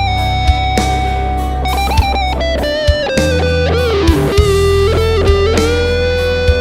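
Modified Squier Bullet electric guitar with HSS pickups, played through a Boss ME-25 multi-effects: a sustained lead line of held notes that bends down with wide vibrato in the middle, then settles on a long held note near the end, over a steady low backing.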